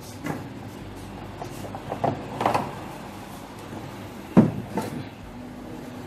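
Clunks and knocks of an 11 kg electric concrete breaker and its packaging being handled as it is taken out, the sharpest knock about four and a half seconds in.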